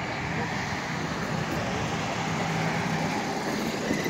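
Street traffic noise, with a motor vehicle's engine humming steadily nearby.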